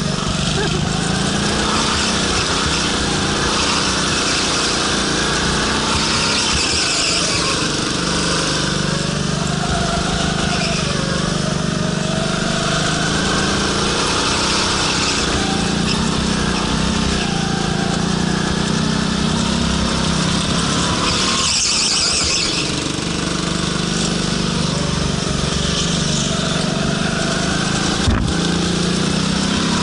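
Go-kart engine running hard on track, its pitch dropping and climbing again as it slows for corners and accelerates out, with tyres squealing at times. A single short knock near the end.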